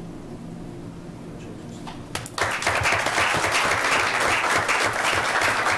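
A roomful of people breaking into applause about two seconds in, clapping steadily from then on; before that only quiet room tone with a faint low hum.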